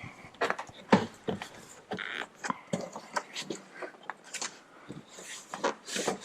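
Plastic interior door panel of a 1995 Honda Civic being pried and worked loose from the door: irregular clicks, snaps and knocks as its push clips give and the panel is handled.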